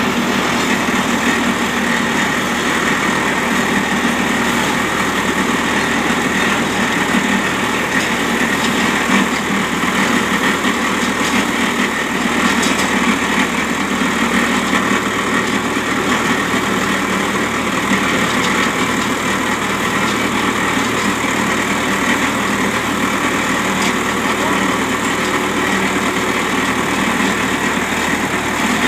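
Vikas 235 baler and the tractor driving it, running steadily with a continuous loud mechanical noise.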